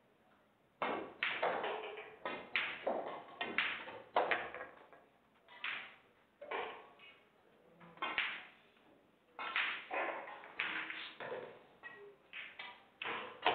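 Pool balls clicking and knocking: a cue strike and ball-on-ball contact about a second in, then a string of further irregular clicks and knocks ringing in a large hall.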